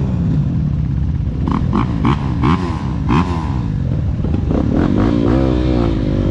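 Yamaha trail bike engine running close up and being blipped, its pitch rising and falling, with other dirt bikes running around it. A quick series of short sharp clicks comes about a second and a half to three seconds in.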